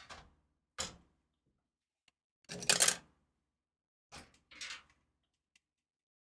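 Short clicks and knocks of small hardware parts being handled. The loudest is a quick rattle of several clicks about two and a half seconds in, with single softer clicks before and after it.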